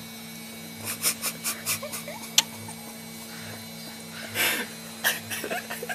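A small child's mouth smacking and sucking on a piece of lemon: a quick run of short wet clicks, then a couple of breathy huffs a little later.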